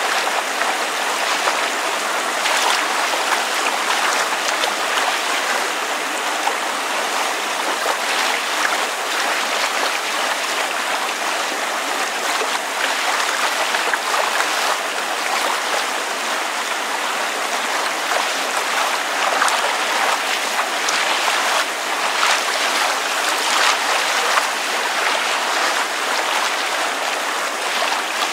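Water lapping with rain falling: a steady, dense wash of small splashes that keeps an even level throughout.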